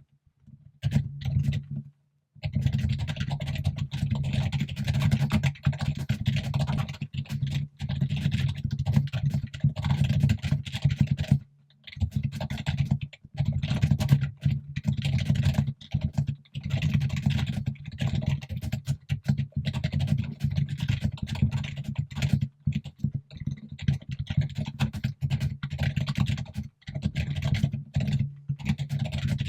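Fast, loud typing on a computer keyboard: a dense run of keystroke clicks, each with a deep thud. It breaks off briefly about two seconds in and again near the middle.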